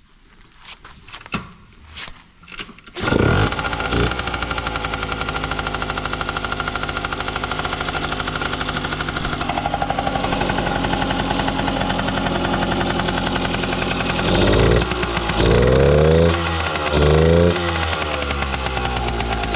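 Yamaha RX50 50cc two-stroke single-cylinder engine started cold. It catches about three seconds in after a few knocks, then idles steadily and is revved three times near the end, with no abnormal noise.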